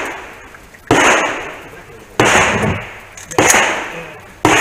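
Pistol shots, four of them about 1.2 seconds apart, each sharp crack followed by a ringing decay of about a second.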